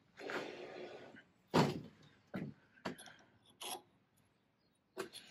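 A brief rustling scrape, then about five separate sharp metal knocks and clinks, the loudest about a second and a half in: metal parts and tools being handled on a stopped lathe.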